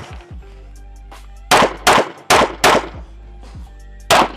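Smith & Wesson Equalizer 9mm pistol firing a quick string of four shots about a second and a half in, then one more shot just before the end, each crack echoing briefly. Background music plays underneath.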